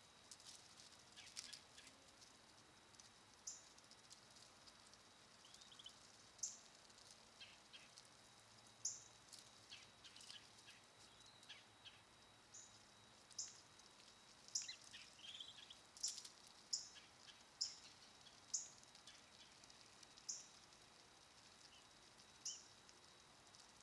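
Black-bellied whistling duck ducklings peeping: short, thin, high-pitched peeps repeated about once a second, growing louder and more frequent in the second half, over a faint steady high-pitched hum.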